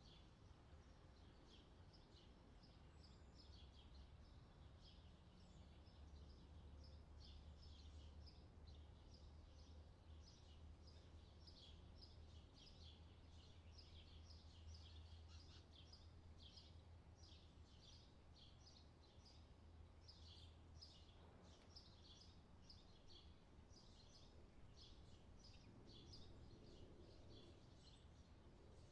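Faint background track of summer birdsong: many small birds chirping in quick, busy runs, over a low steady hum.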